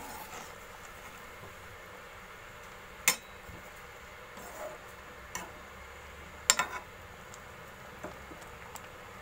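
Steel ladle clinking against the pot while stirring a boiling pot of chicken, dal and mustard greens: four or five sharp, separate knocks, the loudest about six and a half seconds in, over a faint steady hiss.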